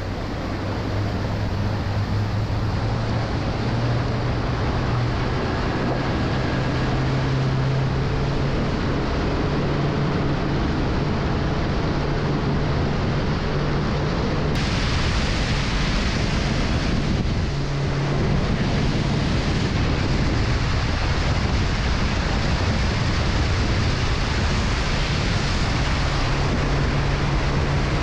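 Suzuki outboard motor running steadily under way, its low drone rising slightly in pitch over the first few seconds, under a constant rush of water along the hull and wind on the microphone. The hiss turns suddenly brighter about halfway through.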